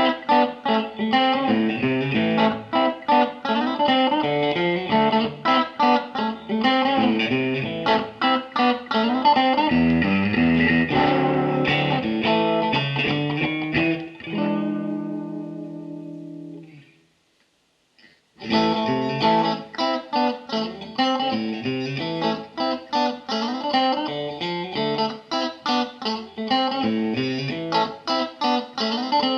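Ibanez AZES31 electric guitar played through a Mesa Boogie Express 5:25 tube amp, picking quick single-note lines. About halfway through, a held chord rings out and stops, leaving a second of silence before the picking starts again.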